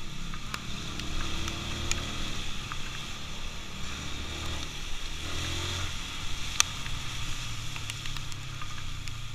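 Motorcycle engine running while riding, its low drone shifting in pitch about midway, with a sharp click about six and a half seconds in.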